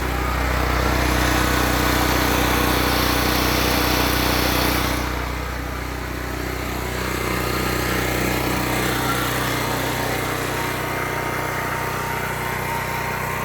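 Harbor Freight Predator portable generator engine running steadily just after a cold start from eight and a half months of winter storage. It dips a little in loudness for a couple of seconds about five seconds in, then steadies again.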